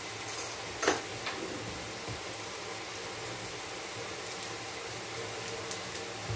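Diced potatoes, carrots and onion frying in oil in a pan: a soft, steady sizzle, with one sharp crackle about a second in and a few faint ticks near the end.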